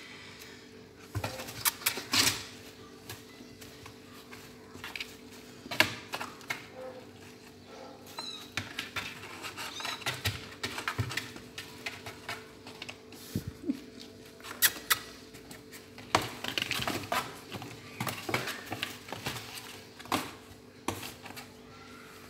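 Kittens moving and scratching about in a cloth-lined cardboard box: irregular light scratches, taps and rustles, with a faint steady hum underneath.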